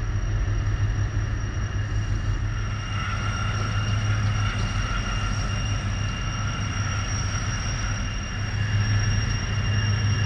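Towboat pushing barges past on the river: a steady low engine rumble with a thin high whine above it, swelling again near the end.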